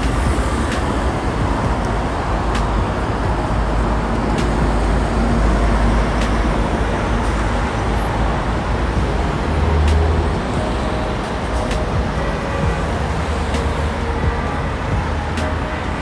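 Steady city road traffic: cars and buses driving past on a wide multi-lane street, a continuous rumble of engines and tyres that swells about ten seconds in.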